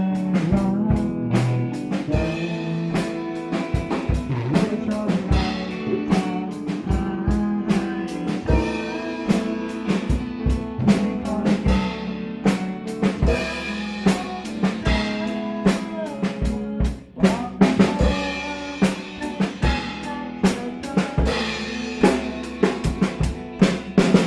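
A band playing an instrumental passage of a pop song, with no singing. A drum kit keeps a steady beat of kick and snare hits under bass and sustained melodic instruments, with a short break about seventeen seconds in before the band comes back in.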